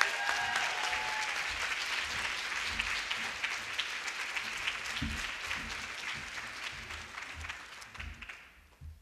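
Audience applauding, a dense patter of many hand claps that gradually dies away near the end.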